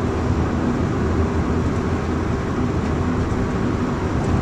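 Steady road and engine noise inside a moving car's cabin, a low, even rumble.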